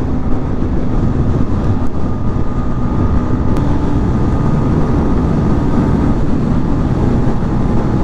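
Yamaha MT15's single-cylinder engine running steadily at cruising speed, under a constant low rush of wind and road noise.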